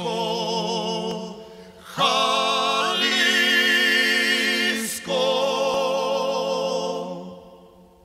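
Singing in long held notes with wide vibrato, in three phrases. The second starts suddenly and loudly, and the last fades away near the end.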